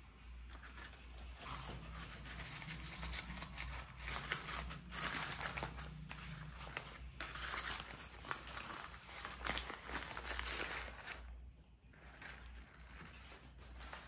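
Crumpled brown kraft packing paper rustling and crinkling as it is handled and pulled open from around glassware, with a short lull near the end.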